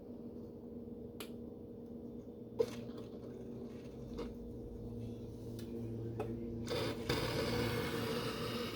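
Espresso machine running with a steady hum and a few light clicks, then a hiss that starts about seven seconds in and keeps going.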